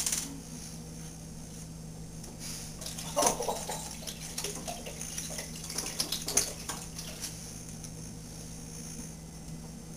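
Hard cider pouring from a bottle into a stainless steel stockpot, from a couple of seconds in until about seven seconds, with small splashes and clinks.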